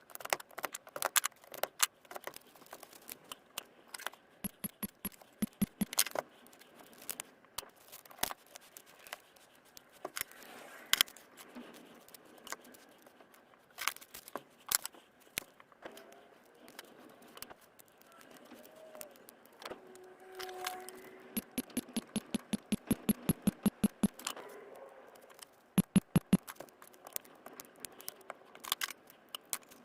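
Sped-up workshop handling of a cordless tool battery pack and its small parts: rapid clicks, taps and rattles, with a fast run of clicks near the middle and another near the end.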